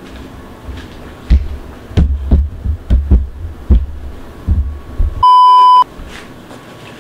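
A run of dull thumps and soft knocks as a raw chicken is patted and handled while being dried with paper towels. About five seconds in, a loud steady beep lasts just over half a second, with the background cut out around it as in an edited-in bleep.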